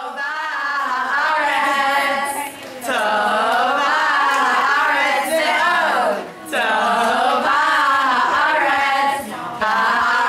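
A group of teenage girls singing together, unaccompanied, in long sung phrases broken by brief pauses about every three seconds.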